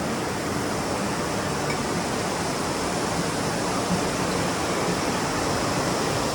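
Heavy rain pouring down: a steady, even rush of water.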